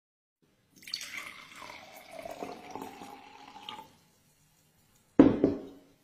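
Water poured from a glass pitcher into a stemmed glass, splashing and trickling for about three seconds. Just past five seconds in comes a short, loud thump, the loudest sound.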